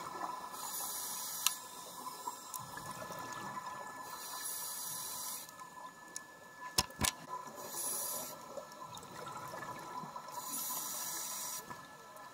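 Scuba breathing heard underwater: four bursts of hiss about every three seconds, with bubbling of air between them. There are two sharp clicks about seven seconds in.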